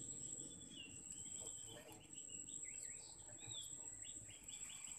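Outdoor ambience of a steady high-pitched insect trill, with a bird calling in a run of short, slurred chirps that rise and fall in pitch.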